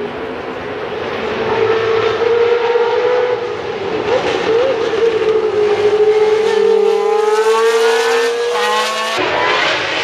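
Historic Formula One cars' racing engines running at high revs, more than one at a time. Their pitch climbs as they accelerate, then changes abruptly near the end.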